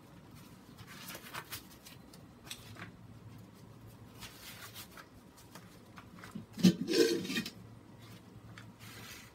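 Rustling and scraping handling sounds as someone shifts about on a woven plastic tarp, with scattered small clicks and one louder knock and rustle about seven seconds in.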